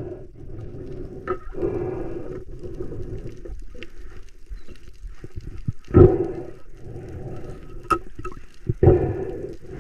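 Muffled water noise picked up by an underwater camera on a snorkeling spearfisher, with louder surges every few seconds.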